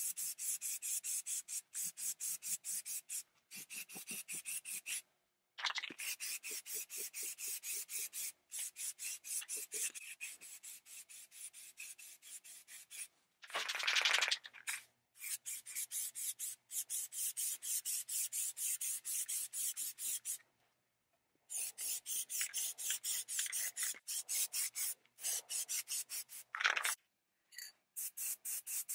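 Aerosol spray can being shaken, its mixing ball rattling in a steady rhythm of about four strokes a second, with a loud burst of spray hiss near the middle.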